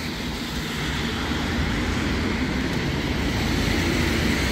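Traffic on a rain-soaked road: a steady hiss of tyres on wet asphalt over a low rumble, swelling slightly as a vehicle comes nearer.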